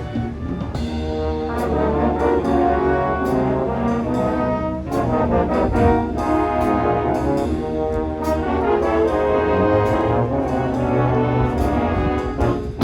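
Marching band playing: brass (trumpets and trombones) sounding full, sustained chords and lines over a steady beat of marching percussion hits.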